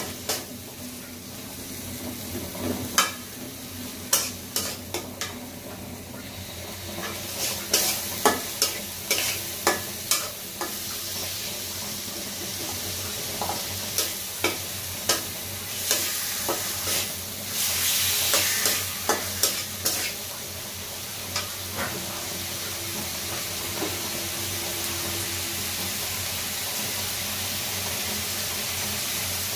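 Chopped tomato frying and sizzling in a metal karai on a gas stove, with a metal spatula scraping and clicking against the pan as it is stirred. After about twenty seconds the stirring mostly stops and the steady sizzle carries on alone.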